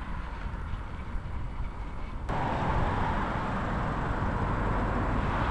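Wind rumble and rolling noise on a GoPro's microphone while cycling along a street. The noise jumps suddenly louder and brighter about two seconds in.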